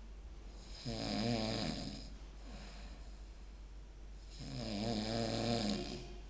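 A sleeping pet snoring: two snores about three and a half seconds apart, each lasting about a second.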